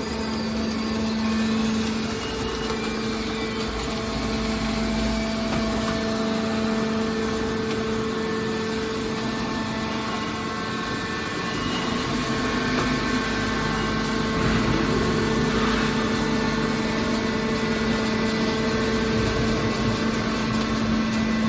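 Hydraulic scrap-metal baler running: a steady machine hum with an even drone.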